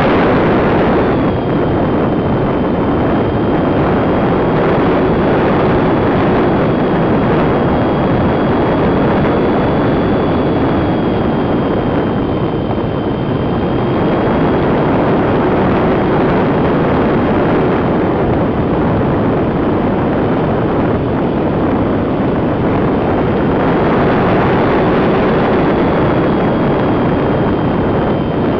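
Radio-controlled model plane in flight heard from a camera on its tail fin: a loud, steady rush of wind and airflow over the camera, with a thin high whine from the plane's electric motors that shifts slightly in pitch a few times as the throttle changes.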